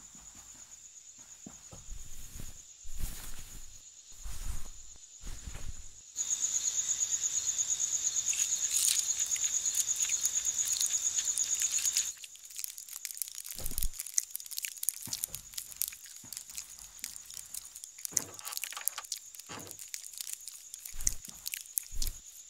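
Cricket chirping in a steady high trill that grows much louder for about six seconds in the middle. Scattered soft knocks and thuds come before and after the loud stretch.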